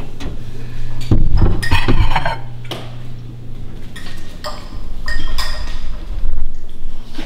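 Ceramic bowl knocking and clinking as it is lifted out of a microwave and handled, a scatter of sharp knocks bunched in the first two seconds and again in the middle, over a steady low hum.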